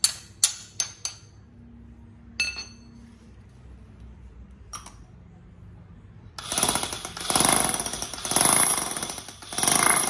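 Steel tool bits clink a few times. About six and a half seconds in, an electric demolition hammer starts hammering in repeated bursts of about a second each, a test run of the tool.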